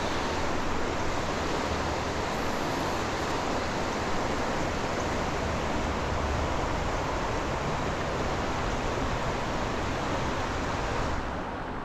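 A trout stream running high and fast with spring runoff, rushing steadily. The rushing dies away near the end.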